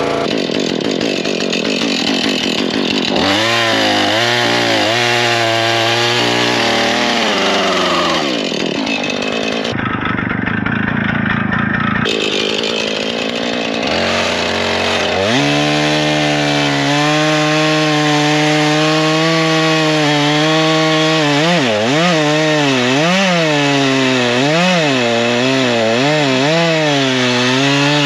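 Husqvarna gas chainsaw cutting through a large log, its engine pitch dipping and rising again and again as the chain bites and the saw works under load.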